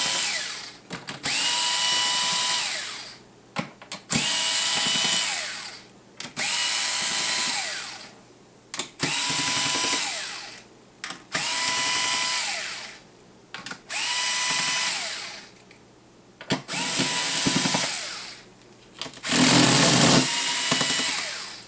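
Powered screwdriver backing screws out of the back of a tablet computer: eight short whirs in a row, each spinning up to a steady pitch for a second or two and then stopping, with small clicks in the gaps between.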